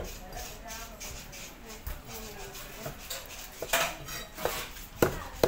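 Heavy knife chopping fish on a wooden block: one sharp chop at the start, then a quick run of chops near the end.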